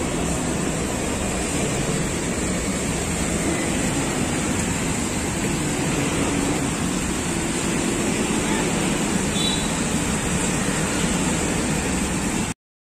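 Steady rushing outdoor noise of road traffic mixed with the splashing of small fountain jets, cutting off abruptly near the end.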